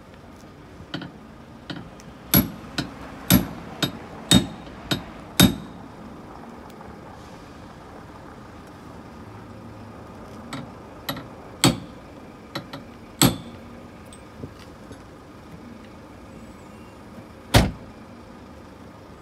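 Hammer blows on the rear of a Ford Mondeo at its open boot, four sharp strikes about a second apart, then a few more, some with a short metallic ring. Near the end the boot lid slams shut with one loud thud.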